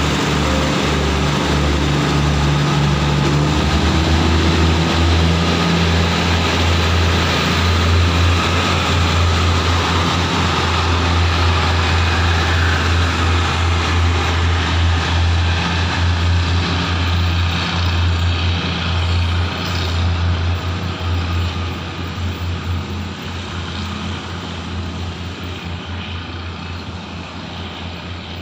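THN/NKF diesel railcar set pulling away under power: a low diesel engine drone that climbs in pitch over the first few seconds as the train accelerates, with the rumble of wheels on the rails. The sound holds steady, then fades over the last third as the train recedes.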